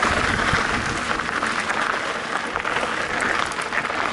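Mountain bike rolling along a dirt trail: a steady, dense crackle of tyre noise on the loose surface.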